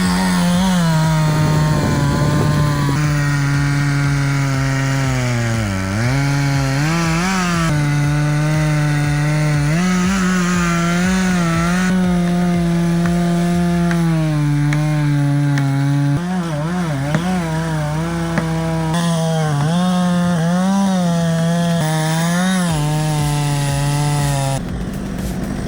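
Two-stroke chainsaw running at high revs in a cut. Its engine note wavers as the chain loads and recovers, sagging deeply once about six seconds in and wobbling quickly a little past the middle.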